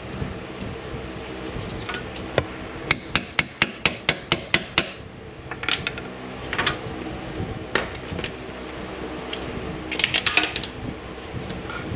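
A run of about ten sharp metallic strikes, about five a second, each with a high ringing tone, like a hammer tapping on steel during torque mount work. Scattered single knocks follow, then a quick cluster of clicks near the end, over a steady low hum.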